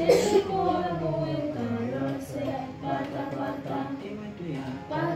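Young children singing a song in the Fon language together, with a brief loud burst of voice right at the start.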